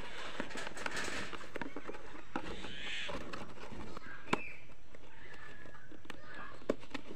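A cardboard box being handled, with a few sharp taps and clicks from the packaging, and birds calling now and then in the background.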